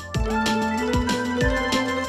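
Background music with a steady drum beat of about two to three thumps a second under held notes.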